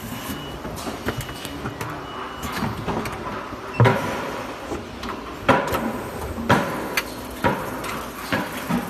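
Heat transfer printing machine for plastic buckets running, with a steady mechanical noise and sharp clunks about once a second from about four seconds in.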